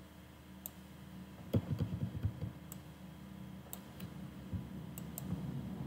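Faint, scattered clicks of a computer mouse, about eight of them spread irregularly, with a few low desk bumps around a second and a half in.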